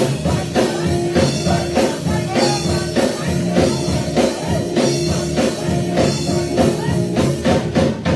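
Band music with a steady drum-kit beat, bass and guitar, a sustained note held through the middle.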